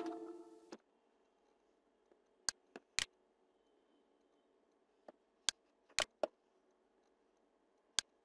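Computer mouse-button clicks: about eight short, sharp clicks spread over several seconds, some in quick pairs. In the first second a ringing musical tone dies away.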